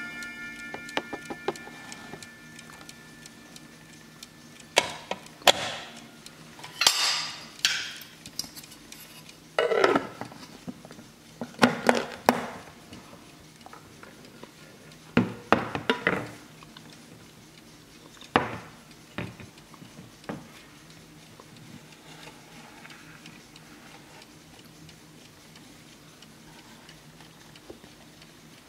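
Hermle 130-020 mantel clock movement: its chime rods ring out and fade over the first couple of seconds, over the ticking of the escapement. Then come about a dozen sharp knocks and clatters spread over some fifteen seconds as the clock's wooden back cover is handled and fitted, after which only faint ticking is left.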